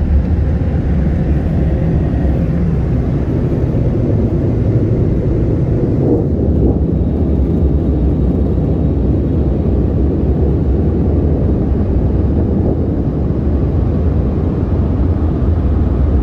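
The AUTEC in-bay car wash's gantry dryer blowers running, a steady, loud rush of air with a deep low hum, heard from inside the car.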